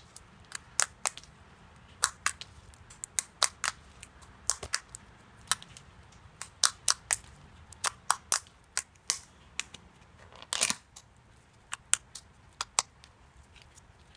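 Slime being pressed and poked, giving off irregular sharp pops and clicks, a few a second, with a longer squishy crackle about ten and a half seconds in.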